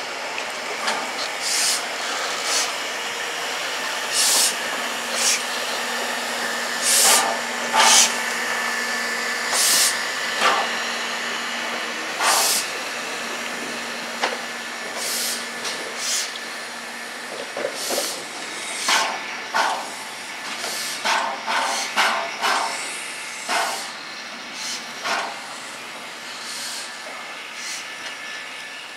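Three-cylinder DB class 01.10 steam locomotive 01 1075 moving at walking pace, with a steady hiss of escaping steam. Over the hiss come irregular sharp puffs and knocks, loudest about seven and eight seconds in, and in a quick cluster during the second half.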